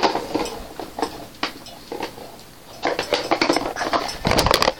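Hands rummaging one-handed through packaging inside a box: irregular rustling, scraping and small taps, thickest in the last couple of seconds.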